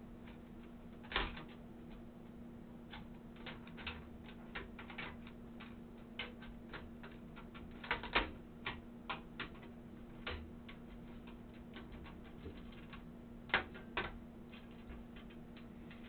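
Irregular clicks and light metallic knocks of a motherboard being handled and seated inside a steel PC case, with a few louder knocks about a second in, around the middle and near the end. A steady low hum runs underneath.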